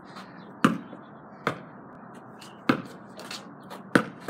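A basketball being dribbled: four sharp bounces, irregularly spaced about a second apart.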